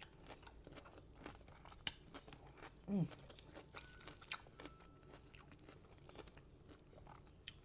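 Quiet chewing with scattered crunches of yellow pickled radish, and a short 'mm' hum about three seconds in.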